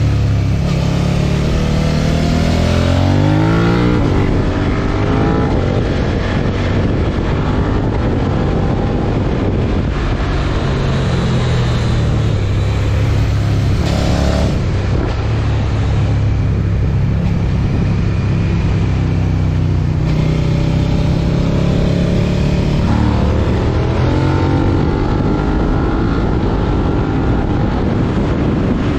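Suzuki SV650 90° V-twin with a Yoshimura R77 exhaust running under way, fitted with a slipper clutch, with wind noise over it. The revs climb twice, once up to about four seconds in and again about three-quarters of the way through, and hold fairly steady in between.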